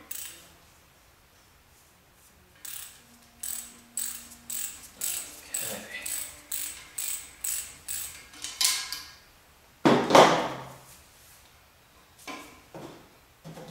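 Hand ratchet clicking in short, regular strokes, about two a second, as it backs a castellated nut off a crankshaft sludge-trap cap stud. Partway through there is a single louder, longer rasp of metal, and a few more ratchet clicks come near the end.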